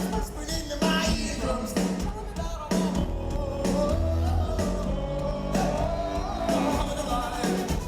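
Rock band playing live: a sung vocal melody over a pulsing bass line and drums.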